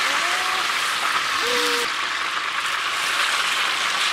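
Stingray fillets deep-frying in a large pot of hot oil: a steady, dense sizzling hiss. Two short bits of voice come through in the first second and a half.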